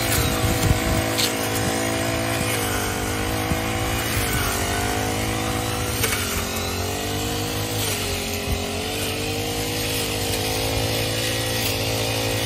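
Two ChuangChao backpack brush cutters running at high speed while cutting tall grass. The engine pitch sags and recovers every two seconds or so.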